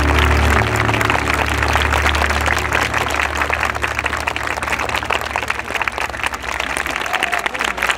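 Audience applauding steadily. The closing music's held low notes fade out over the first few seconds.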